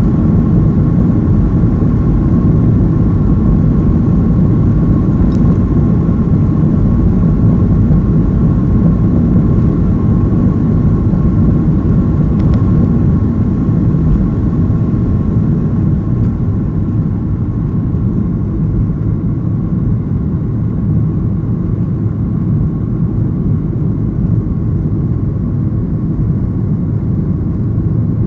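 Cabin noise inside a Boeing 737: the steady rumble of the jet engines and rushing air, with a faint steady whine on top. It eases off slightly a little over halfway through.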